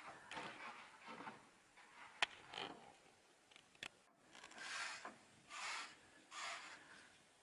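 Hand tool or abrasive rubbing and scraping against a surface in about six separate strokes, with two short sharp clicks in between.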